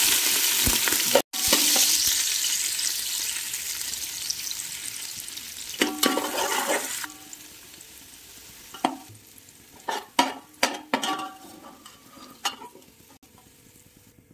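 Sliced onions frying in hot oil in a metal pot: a loud sizzle that fades away over about seven seconds. Then a slotted metal spoon knocks and scrapes against the pot several times as the browned onions are stirred and lifted out.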